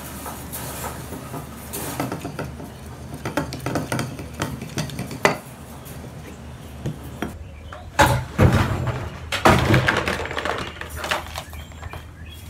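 Fishing tackle being handled on a wooden workbench: scattered clicks and knocks at first, then from about eight seconds in a louder clatter of a plastic tackle box, with metal lures and hooks rattling in its compartments.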